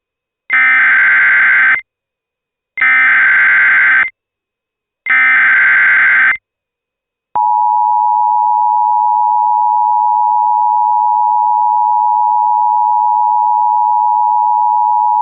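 Emergency Alert System alert opening: three loud SAME header data bursts in a row, then the steady two-tone EAS attention signal starting about seven seconds in. Together they mark the start of a new alert.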